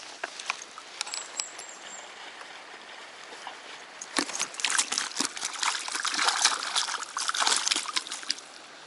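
Water splashing and trickling, with a few light clicks in the first couple of seconds. About four seconds in the splashing turns louder and busier, then eases off near the end.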